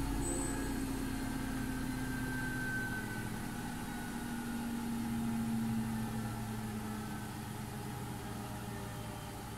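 Bosch washing machine on its spin cycle at about 1000 rpm: a steady motor and drum hum whose main tone slowly falls in pitch.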